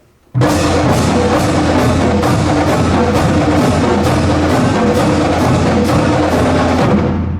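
Marching band percussion section (drumline) playing alone: a loud, steady drum pattern with sharp accented strikes about twice a second over a sustained low bass-drum tone. It starts abruptly, stops near the end, and rings on briefly in the gymnasium.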